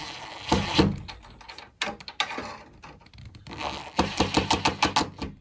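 Bosch cordless electric screwdriver driving a screw through a steel strike plate into a wooden cabinet door in short runs. Near the end comes a quick series of ticks, about eight a second.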